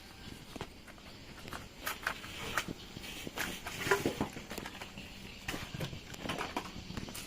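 Irregular clicks, taps and knocks of tools and metal parts being handled while an outboard motor is assembled, with a few brief squeaks and the loudest knock about four seconds in.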